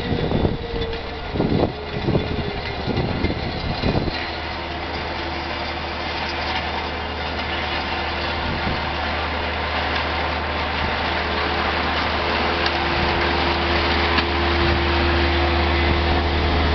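Hamm HD 120 tandem asphalt roller running with a steady low hum, growing louder as it drives closer. Wind buffets the microphone for the first few seconds.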